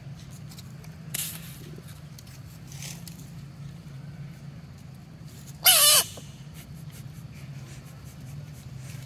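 A long-tailed macaque gives one short, wavering squeal a little over halfway through, over a steady low hum.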